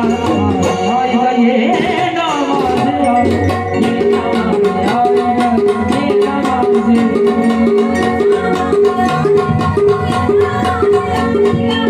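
Instrumental break of a song: backing music with a quick, evenly repeating melodic figure over a steady percussion beat.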